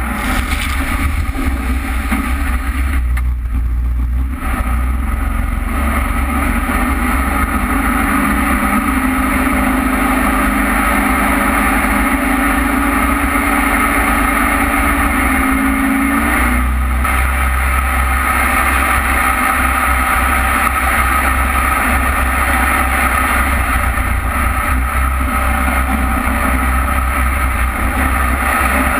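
Jet boat running at speed up a river: the engine's steady drone mixed with rushing wind and water spray. A steadier engine hum stands out in the middle for several seconds.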